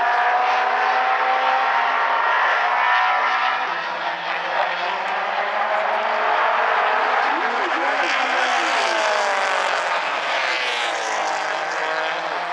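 Several mini stock race cars running at racing speed around an oval track, their engine notes rising and falling against each other as they accelerate and lift. The sound grows brighter for a few seconds past the middle as the cars come by closer.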